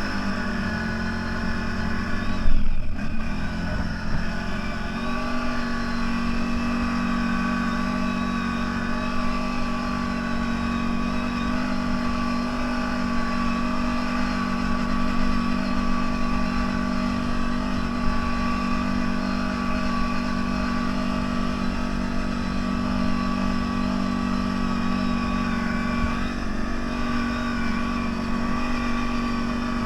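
Engine of a CFMoto 1000 off-road vehicle running at a steady speed while driving, with a brief louder bump about two and a half seconds in.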